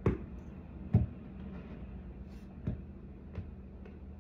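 Four short knocks, the loudest about a second in, over a low steady hum.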